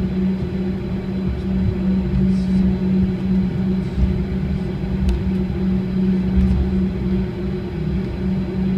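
Cabin noise inside a Bombardier CRJ200 taxiing: a steady drone from its rear-mounted GE CF34 turbofans at taxi power, with an uneven low rumble from the wheels rolling over the concrete.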